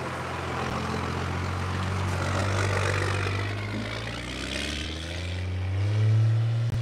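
Modified, non-stock Cummins turbodiesel in a second-generation Dodge Ram pickup, pulling hard through deep snow: the engine note climbs steadily in pitch and is loudest about six seconds in. A sharp click comes just before the end.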